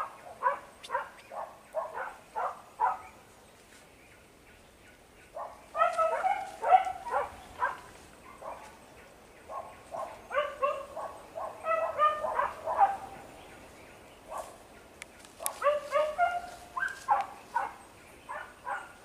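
Hunting dogs baying on a wild boar's trail: rapid trains of high, yelping barks in four bursts of a few seconds each, with short lulls between.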